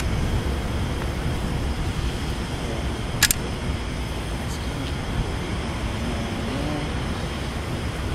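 Caulking gun squeezing sealant into drilled holes in asphalt roof shingles, with one sharp click about three seconds in and a few fainter ticks later, over a steady low outdoor rumble.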